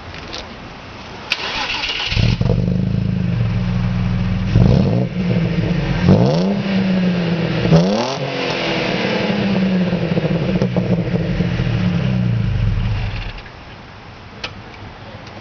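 A 1996 Audi A4 2.8 V6 with an aftermarket muffler starts up and idles. The throttle is blipped three times, each rev rising and falling quickly, and the engine idles again before being shut off near the end.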